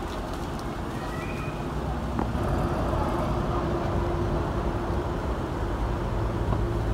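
Steady road-vehicle noise: a constant engine hum over low road rumble, growing a little louder about two seconds in.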